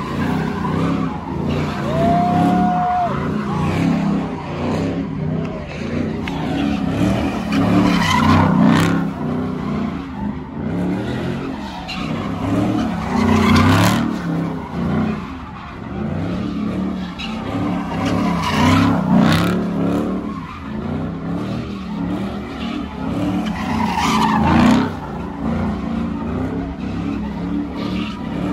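Car engine revving hard with tyres squealing and skidding as the car spins, the squeal swelling into louder surges about every five to six seconds.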